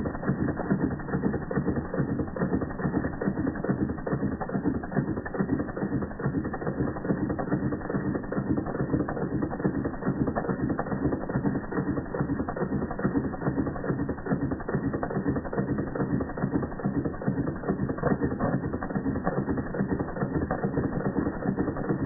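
Doll model 338/1 dual-boiler toy steam engine running steadily: a fast, even mechanical clatter from its cylinder, piston rod and flywheel.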